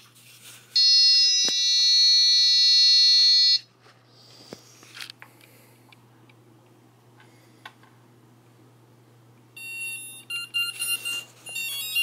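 Multicopter's ESC and flight-controller electronics beeping during ESC throttle calibration, just after the battery is plugged back in. About a second in comes a steady beep lasting about three seconds. Near the end comes a run of short beeps stepping between pitches.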